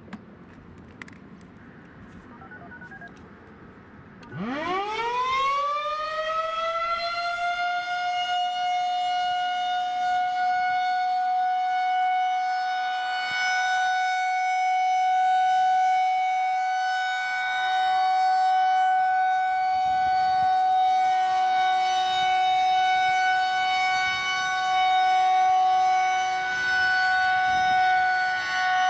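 Federal Signal 2001-130 outdoor warning siren starting about four seconds in: its pitch winds up quickly, then holds one steady tone, the Alert signal of a siren test. Its loudness swells and dips slowly as the siren head rotates. Before it starts there is only quiet background with a couple of clicks, and a fainter, lower steady tone joins about two-thirds of the way through.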